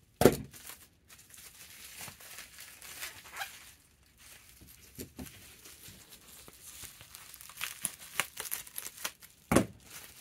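Plastic bubble wrap crinkling and rustling as it is handled and pulled apart, with a loud thud just after the start and another near the end.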